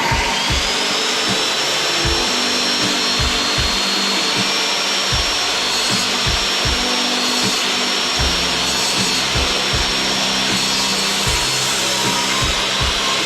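An electric woodworking power tool starts up and runs steadily with a high motor whine, over irregular low knocks.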